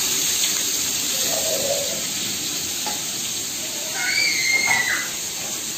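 Pieces of katla fish frying in oil in an iron wok, sizzling steadily.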